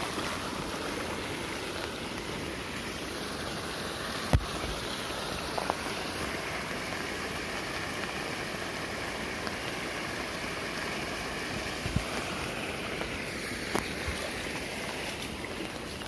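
Steady rain falling on a pond, an even hiss of drops on the water, broken by a few sharp knocks, the loudest about four seconds in.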